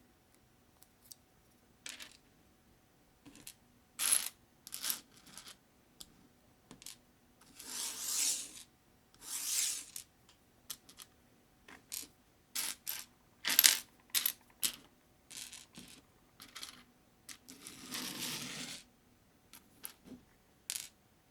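Small Sembo plastic clamp bricks clicking and clattering as they are picked up and pressed together, in many short separate clicks, with three longer rustling spells.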